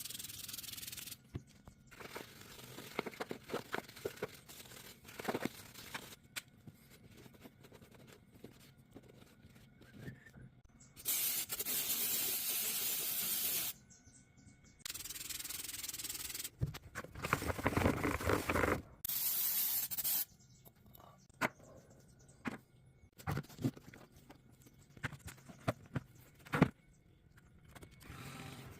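Hands rubbing and scrubbing a motorcycle air filter, with scraping and handling noises, broken by several hissing bursts of spray, the longest lasting about two and a half seconds.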